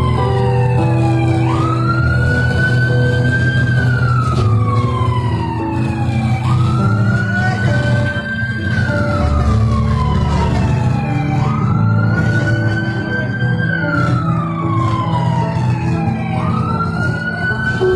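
Siren wailing in a slow cycle: the pitch jumps up quickly and then slides slowly down, repeating about every five seconds. Low held music notes play underneath.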